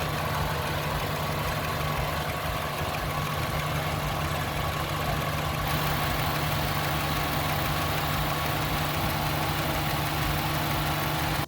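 Honda CR-V engine idling steadily, with a constant low hum and a broad mechanical noise.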